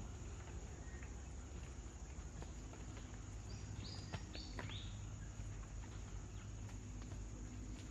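Quiet forest ambience: a faint steady background with a few scattered ticks, and a bird giving three or four short, quickly falling chirps around the middle.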